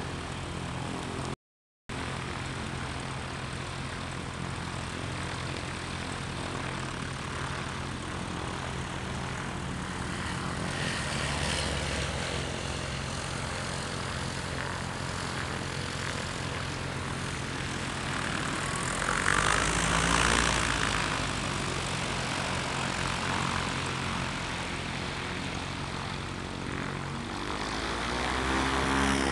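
Light single-engine propeller aircraft on a grass airfield: a steady engine hum runs underneath while planes take off one after another at full power, swelling louder about two-thirds of the way through and again near the end as one climbs out past, its pitch gliding as it goes by. The sound cuts out for a moment about one and a half seconds in.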